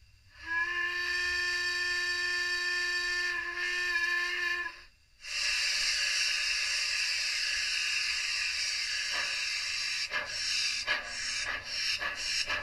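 Steam locomotive sounds: one long whistle blast of about four seconds, then, after a brief break, a loud steady hiss of escaping steam. About ten seconds in, uneven exhaust chuffs start over the hiss, around two a second, as the locomotive gets under way.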